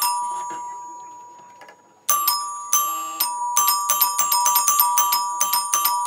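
Anchor ding-dong electric doorbell chiming as its bell push is pressed. A first ding-dong rings out and fades over about two seconds, a second comes about two seconds in, and then a quick run of chimes, several a second, begins about three and a half seconds in. The newly wired bell is working.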